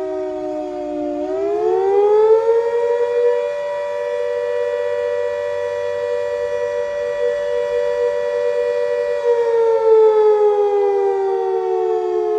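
Fire siren wailing: after a short dip in pitch it rises over about two seconds to a steady high note, holds it for about six seconds, then slowly falls toward the end.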